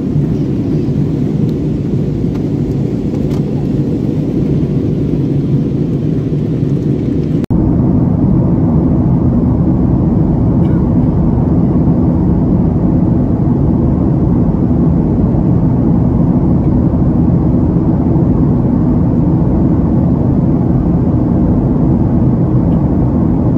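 Steady engine and airflow noise inside a jet airliner's cabin in flight, heard from a window seat. About seven seconds in it changes abruptly to a slightly louder drone of the same kind.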